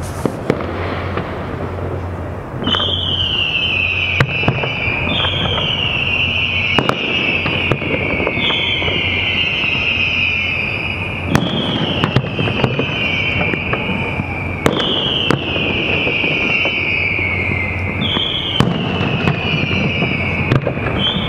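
Aerial fireworks shells bursting with sharp bangs every second or two. From a few seconds in, a high tone falls in pitch again and again over the bangs, each fall lasting about a second and a half.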